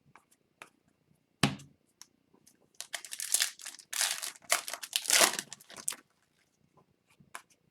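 Foil wrapper of an Upper Deck hockey card pack being torn open and crinkled: a sharp snap about a second and a half in, then about three seconds of dense crinkling.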